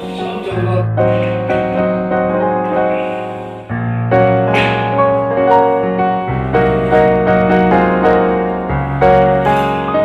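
Background music led by piano or keyboard, with sustained notes over a bass line that changes every couple of seconds and grows louder about four seconds in.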